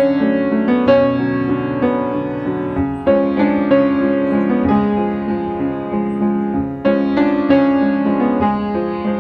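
Background piano music: a slow melody of sustained notes over chords.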